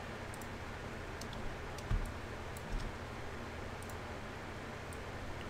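A few faint clicks of a computer mouse and keyboard over a steady low hum, with a soft thump about two seconds in.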